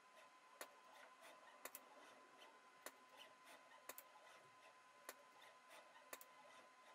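Near silence broken by faint, sharp clicks about once a second, some in close pairs, over a faint steady hum.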